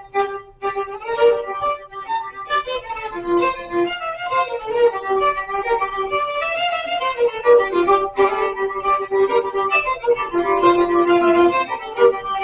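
Violin playing a melody of many short notes with a few held ones, in a Celtic-flavoured fiddle style.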